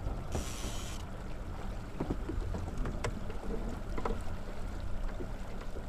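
Small boat outboard motor running steadily, a low rumble. A brief hiss comes about half a second in, and a few light clicks follow around two to four seconds in.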